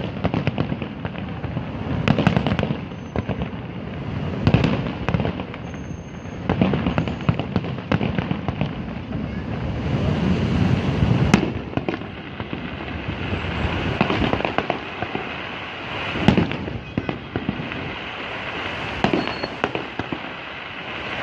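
Aerial fireworks display: a continuous barrage of bangs and crackling, with sharper, louder reports every few seconds.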